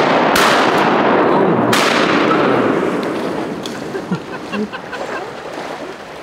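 Two shotgun shots about a second and a half apart, the first right at the start, over a loud steady rush that fades away after about three seconds, with a few faint short calls near the end.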